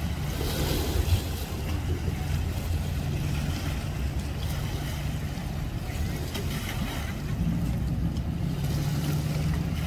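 An engine idling steadily with a low hum, under a haze of outdoor water and wind noise.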